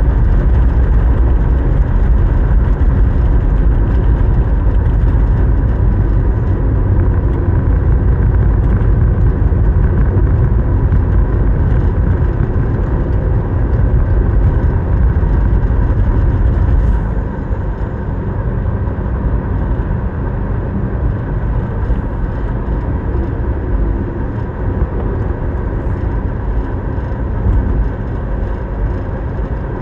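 Car driving on the road: a steady low rumble of road and engine noise. The low rumble eases a little past halfway through.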